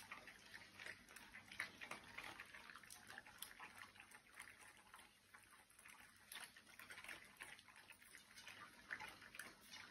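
Two dogs eating dry kibble from bowls: faint, irregular crunching and small clicks of food against the bowls.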